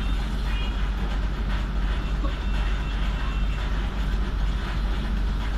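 Steady low rumble inside a stopped city bus, as heard from the cabin. Street traffic passes outside.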